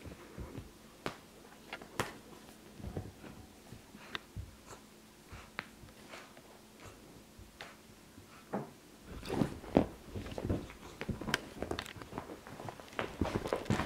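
A Siamese cat playing on a fabric sofa: scattered light scratches, rustles and soft knocks of paws and claws on the upholstery, busier in the last few seconds as it scrambles about.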